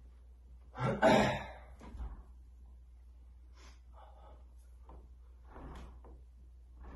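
Doorway pull-up bar knocking in the door frame as a person jumps up and grabs it about a second in, followed by faint, short breaths while hanging and pulling up.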